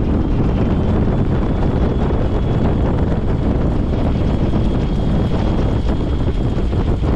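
Biplane engine running as the plane taxis, heard through a tail-mounted camera, with propeller wash blowing steadily across the microphone.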